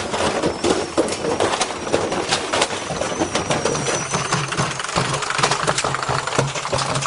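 Washing machine spinning with a heavy, deliberately unbalanced load in the drum, shaking itself apart: a fast, irregular clatter of bangs and rattles, with a low motor hum coming up in the second half.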